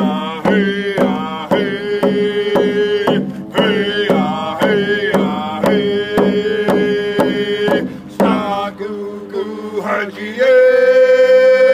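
Men singing a First Nations hand-drum song in full voice over painted rawhide frame drums beaten with sticks at a steady beat of about two strokes a second. The song runs in phrases with short breaks and closes on a long held high note near the end.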